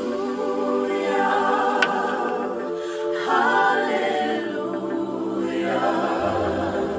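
Choral music: many voices singing together, holding long chords.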